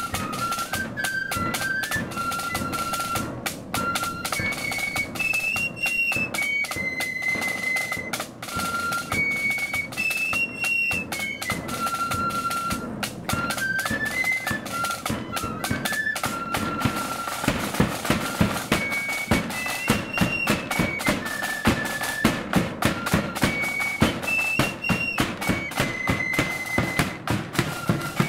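Marching flute band playing a tune: flutes in unison carry the melody over a bass drum and side drums beating a steady march time. The drum strokes come in harder about halfway through.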